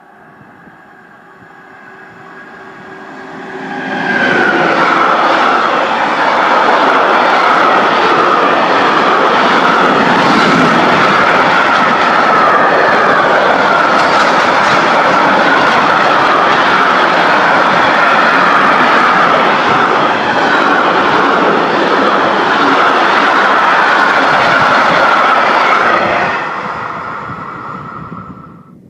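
Container freight train passing close by: the sound builds as it approaches, then a long loud steady rumble and clatter of the wagons rolling past with a wavering high ringing from the wheels on the rails, fading quickly near the end as the train goes by.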